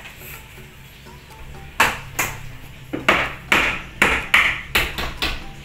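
Hammer blows nailing a wooden baluster to the stair: about ten sharp strikes in quick succession, beginning about two seconds in. Faint background music runs underneath.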